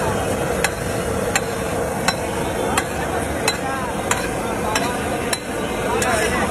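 Metal spatula striking and scraping a large flat griddle, a sharp clink about one and a half times a second, over a steady street hum.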